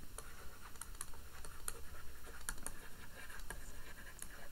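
Stylus clicking and tapping on a tablet screen while writing by hand: a faint, irregular series of light clicks.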